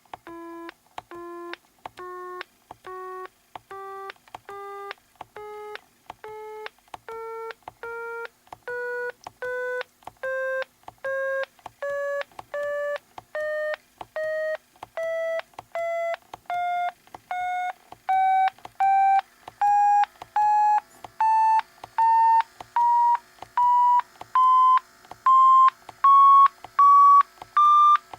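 Orion TI-84 Plus talking graphing calculator in trace mode, sounding a short beep for each point traced, about two a second. The pitch climbs step by step from low to high, following the rising Y value of the graph, and the beeps grow louder as they rise.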